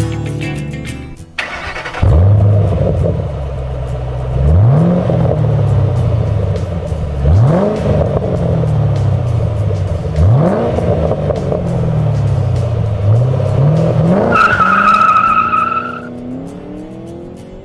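Ford Mustang GT's 4.6-litre V8 heard through a Flowmaster Pro Series axle-back exhaust with 3-inch shorty mufflers, revved about five times, each rev climbing quickly and falling back. A brief high squeal comes near the end, and a short stretch of guitar music plays at the start.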